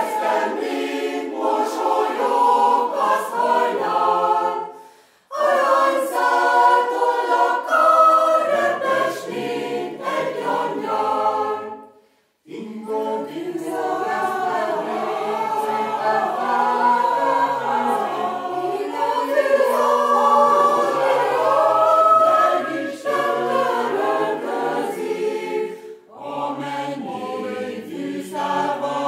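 A choir of women and men singing a song in Hungarian, unaccompanied, in long phrases with short breaths between them about 5, 12 and 26 seconds in.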